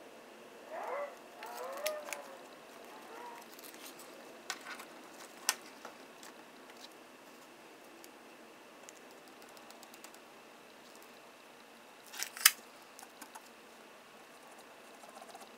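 Quiet handling of a tape measure and marker pen on cardboard: short squeaks of the marker early on, then scattered clicks and taps, the sharpest pair about twelve seconds in.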